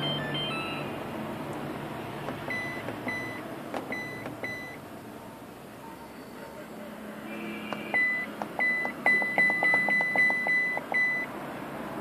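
Videocon Pearl Supreme washing machine control panel beeping as its buttons are pressed: four short beeps a few seconds in, then a quick run of beeps near the end as the settings are stepped through.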